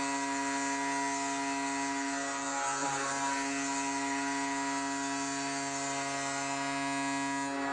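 Tampa Bay Lightning arena goal horn sounding one long, steady blast.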